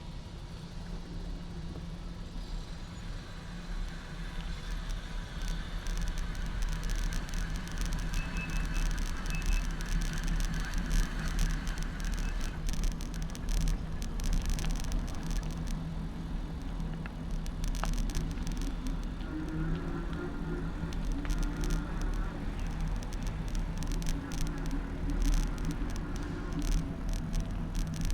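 Riding a bicycle with the camera fixed on the handlebars: a steady low rumble of wind and road on the microphone, with quick rattles and clicks of the bike and mount over an uneven surface that grow busier a few seconds in.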